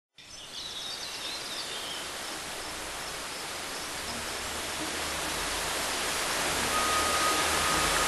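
Waterfall rushing, a steady roar of falling water that slowly grows louder, with a few short bird chirps in the first couple of seconds.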